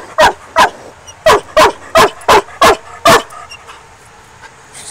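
A coon dog barking at a raccoon caged in a live trap: eight short, sharp barks in quick succession, stopping about three seconds in.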